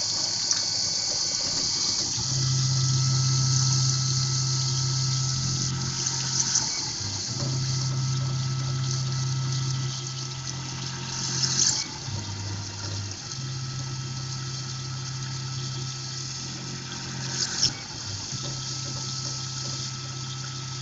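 Tormach PCNC 1100 CNC mill center-drilling holes in an aluminium part, with a steady hiss of coolant spray. Over it a low machine hum runs in stretches of about four seconds, each ending in a short sharp noise before it starts again, about four times.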